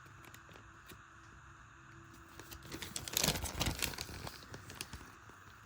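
Small plastic Lego Technic pieces being handled, giving a quick run of light clicks and rustling about halfway through, after a quiet start.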